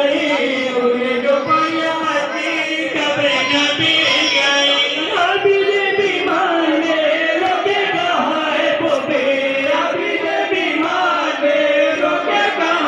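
Men chanting a nauha, a Shia mourning lament, together into handheld microphones, amplified through a PA. The sung lines glide and hold continuously.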